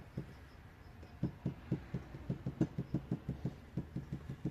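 Plastic trigger spray bottle being pumped rapidly, drawing old brake fluid out of a master cylinder reservoir and squirting it into a container: a quick run of soft clicks and squirts, about four a second, starting about a second in.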